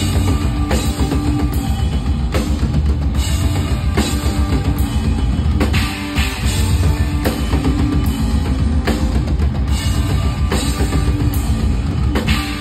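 A drum kit played hard in a rock groove, kick drum, snare and cymbals, along with loud rock music.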